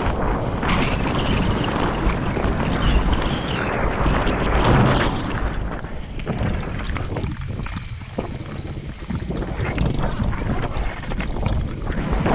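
Wind buffeting the microphone during a fast mountain-bike descent, mixed with knobby tyres rumbling and the bike rattling over a rocky dirt trail. It eases for a moment about halfway through.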